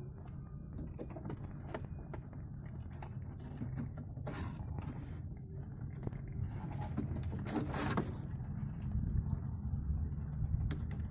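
Scattered scrapes and clicks of a live mud crab being handled and held down by hand, its legs and claws scratching on the hard surface, with two louder scrapes about four and eight seconds in. A steady low hum runs underneath.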